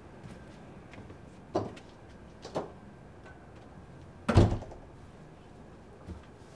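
Door banging: two lighter bangs about a second apart, then one much heavier thud about four seconds in.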